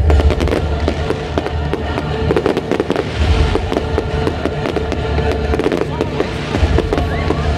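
Aerial fireworks display: a rapid, continuous string of shell bursts and crackles, with music playing underneath.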